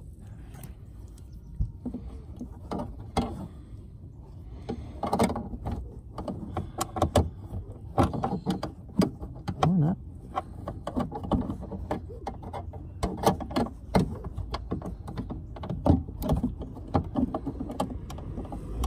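Irregular clicks, taps and rattles of hands working loose a taillight mounting bolt in a Volvo C30's boot, metal and plastic knocking against the trim.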